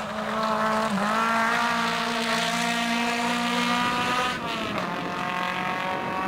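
Two-wheel-drive rally car engine running at high revs, driven flat out on a gravel stage. The revs dip and climb again about a second in, hold high, then drop sharply about four seconds in before holding steady.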